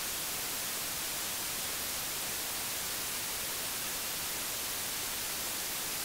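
Steady white noise: an even, unbroken hiss, strongest at the high end.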